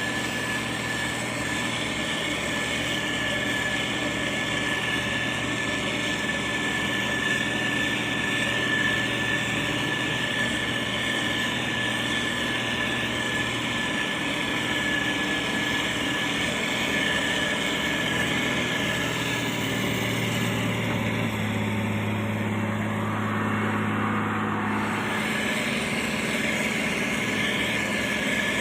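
Diesel engines of heavy road-construction machinery running steadily, with a steady whine above the engine note. The low engine tone shifts partway through, as the machines change load or speed.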